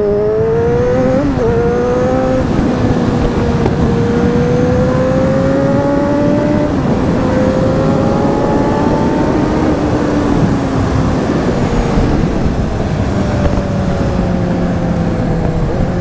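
Kawasaki Z1000's inline-four engine pulling under throttle on the highway, its note rising, dipping briefly twice and rising again, then settling lower near the end, over heavy wind rush.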